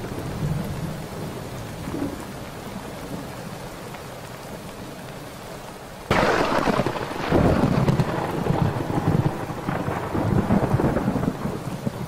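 Thunderstorm sound effect: steady rain with low rolling rumbles, then a sudden loud thunderclap about halfway through, followed by more rolling thunder.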